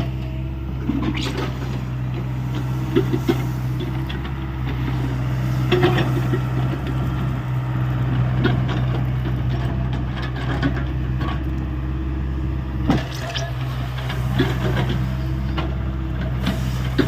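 Hyundai 85A excavator's diesel engine running steadily under working load, with scattered knocks and clatters from the machine at work.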